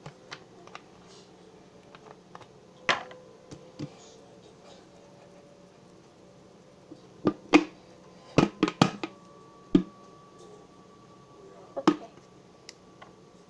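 Scattered light clicks and knocks of slime-making supplies being handled, most likely a glue bottle being squeezed and set down against a bowl, with a quick cluster of knocks about two-thirds of the way through. A faint steady hum runs underneath.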